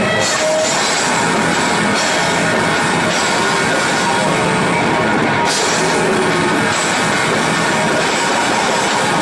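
Heavy metal band playing live in rehearsal: distorted electric guitars with drums and cymbals, loud and dense throughout.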